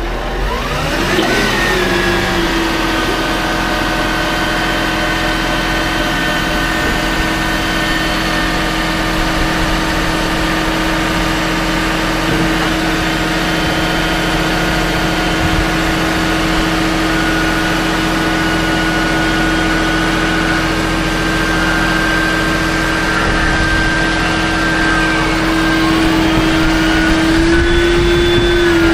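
Farm machine engine revs up about a second in, then holds a steady high speed, rising slightly near the end.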